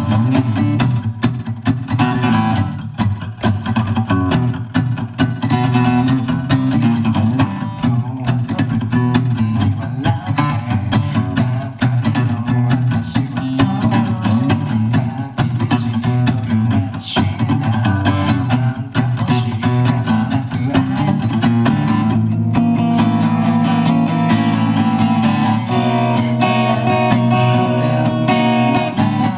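Yamaha FSX5 acoustic guitar strummed with a pick, playing a continuous chord accompaniment; from about two-thirds of the way in, the chords ring out longer.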